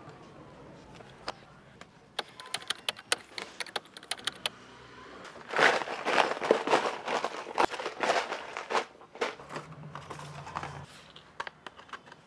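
Cloth and small household items being handled: scattered light clicks and taps, then a denser stretch of rustling and crinkling from about five and a half seconds in, thinning out to a few ticks near the end.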